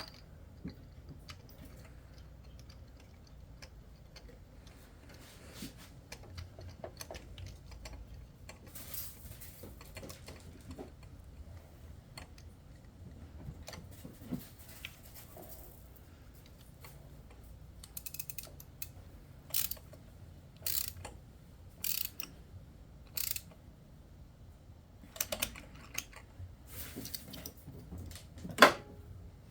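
Ratchet and socket working a spark plug into the cylinder head of a Honda 2.4-litre four-cylinder. Faint scattered clicks at first, then sharp ratchet clicks about once a second in the second half, the loudest near the end.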